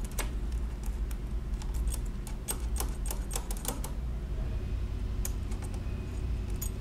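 Irregular light metallic clicks and taps of small steel parts in a 1920s Monroe model K mechanical calculator's carriage-lock mechanism being worked by hand, as a part catches and won't seat. The clicks come thickest in the first few seconds, then thin out.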